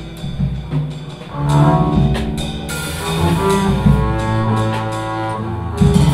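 Live jazz trio playing: double bass carrying the low line under a drum kit with cymbal strokes, and sustained melodic notes above.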